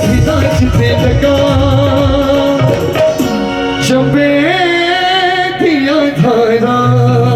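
Live band playing an Indian folk tune without vocals: a hand-drum rhythm for about the first three seconds, then the drums drop out and sustained chords carry on under a melody line that slides up and down.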